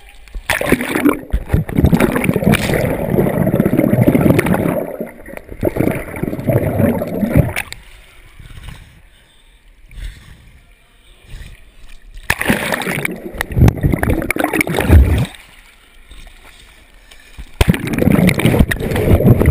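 Pool water splashing and churning right at the microphone as the camera dips in and out of the water. The sound comes in three long spells: through most of the first seven seconds, again in the middle, and again near the end, with quieter stretches between.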